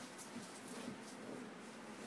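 Faint scuffling and rustling of Malamute puppies tugging at a toy together.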